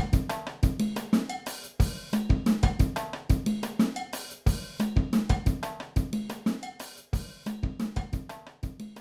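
Outro music: a drum-kit beat with cymbals and hi-hat over a repeating bass line, fading out near the end.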